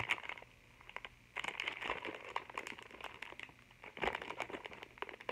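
Plastic snack packet of Planters salted peanuts crinkling as it is handled and opened, an irregular run of crackles starting about a second and a half in.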